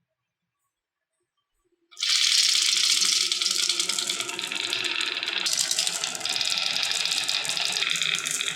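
Silence, then about two seconds in a dense, continuous clatter starts: many marbles rolling and rattling down a marble run track.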